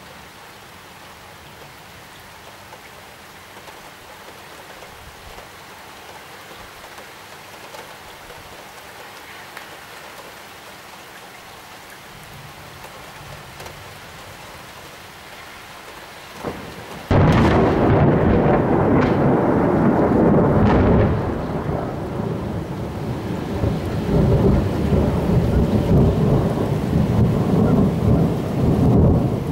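Steady rain falling, then about 17 seconds in a sudden loud clap of thunder breaks out and rolls on as heavy, rumbling thunder over the rain.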